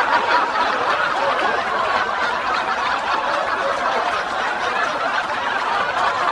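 A group of people laughing together, a steady, dense stretch of overlapping laughter.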